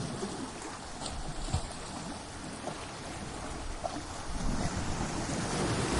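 Ocean surf washing against coastal rocks, a steady rush with a few short knocks in the first half, swelling louder over the last second and a half as a wave comes in.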